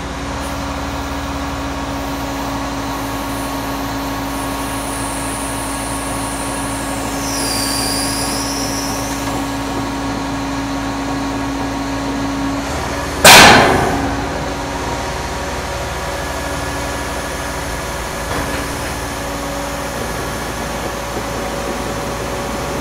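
Heavy-haulage truck engine idling steadily with a low hum. About thirteen seconds in, a single sudden loud burst dies away within a second.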